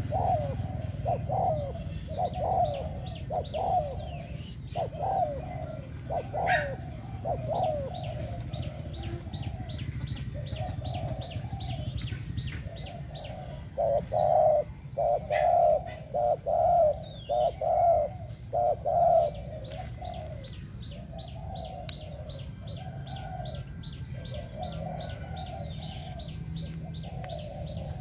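Caged decoy spotted dove cooing repeatedly in short phrases, with a louder run of about eight coos in the middle. Faint rapid high chirping goes on behind it in stretches.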